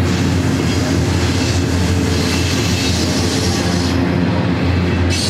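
Double-stack container well cars of a freight train rolling past on the track, a steady noise of steel wheels on rail.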